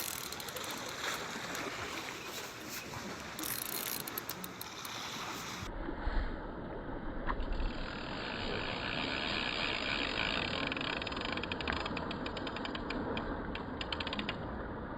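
Spinning reel being worked as line is brought in, its gears and ratchet clicking rapidly in runs.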